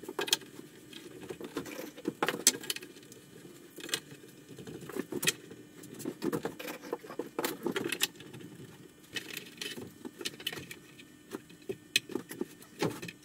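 Metal clamps being set and tightened along a glued straight edge on plywood: red-handled bar clamps and locking C-clamps clinking, clicking and knocking on the wood in many irregular sharp clicks.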